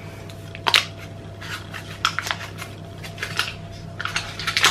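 Paper wrapping of a block of butter crinkling and rubbing as it is turned over in the hands, in several short rustles.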